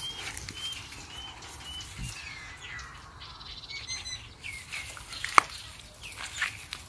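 Birds calling: a run of short, repeated chirps in the first couple of seconds, then a falling whistle and several higher, quicker calls. A single sharp click about five seconds in is the loudest sound.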